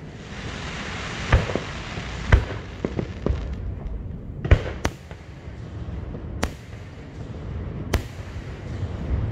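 Aerial fireworks shells bursting in a scattered series of sharp bangs, about nine in all, the loudest about four and a half seconds in, with a hiss through the first few seconds.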